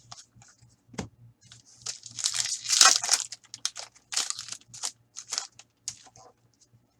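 Trading-card pack wrapper crinkling and rustling as cards are handled, loudest between about two and three and a half seconds in, followed by scattered short crackles.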